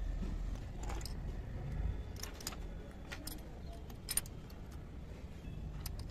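Small, light metallic clinks and clicks as miniature metal kitchen utensils are handled and fitted together, about five scattered clicks over a low steady rumble.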